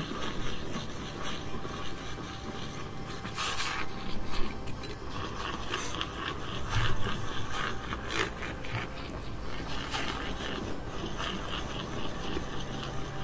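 Battery-powered handheld electric milk frother running, its small whisk spinning in creamer and whipping it into foam, with a couple of brief knocks.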